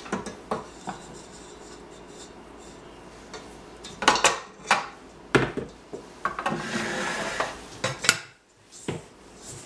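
Metal clinks and knocks from a stand mixer's flat beater and steel bowl being handled, the beater pulled off the shaft and set down on the mixer's metal base. A few sharp clanks come about four to five and a half seconds in, then a stretch of rubbing and a last knock near eight seconds.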